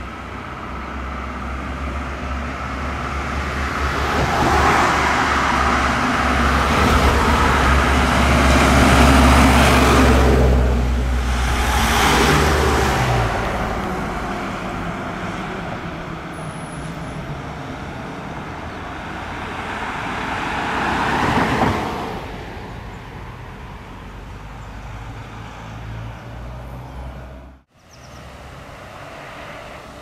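Fire engines and cars driving past: diesel engine rumble and tyre noise swell as a Mercedes-Benz fire engine goes by, then fade. A second, smaller swell comes about 20 seconds in as more vehicles pass, and there is a brief dropout near the end.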